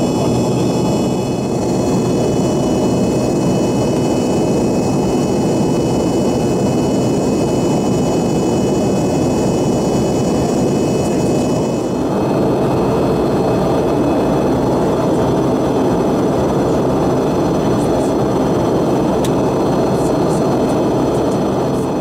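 Cabin noise of an Embraer ERJ-145 in flight: the steady roar of its rear-mounted Rolls-Royce AE3007 turbofans, with a row of high, steady whining tones above it. About halfway through, the sound changes abruptly: the high whine fades and the roar turns fuller.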